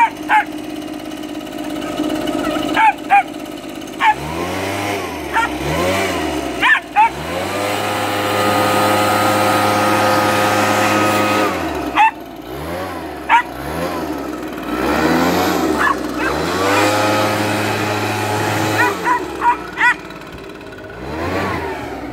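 Leaf blower engine revved up and down repeatedly, held at high speed for a few seconds at a time, with a Jack Russell puppy barking sharply at it in short bursts.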